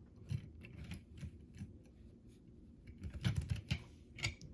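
Light clicks and taps of a plastic-and-diecast toy car transporter being handled on a desk, with a quick run of clicks about three seconds in.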